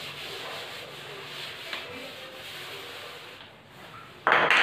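Felt chalkboard duster scrubbing chalk writing off a chalkboard, a steady rubbing that fades out about three seconds in. A short, louder noise follows near the end.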